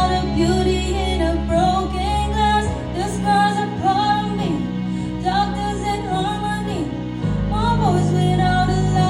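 Music: a melody with some singing over held chords, the bass changing about three seconds in and again near seven seconds.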